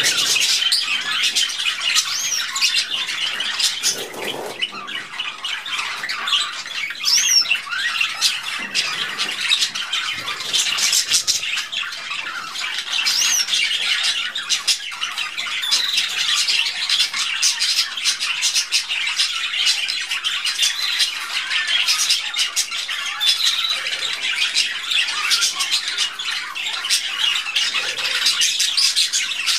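A flock of budgerigars chattering: a dense, continuous mix of chirps and sharp clicks, with a few short rising whistles.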